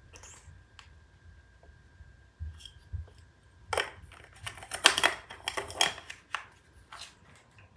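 Handling noise: a few light clicks, then a dense run of sharp clicks and rustles from about four seconds in to about six and a half seconds, as camera gear and packaging are handled.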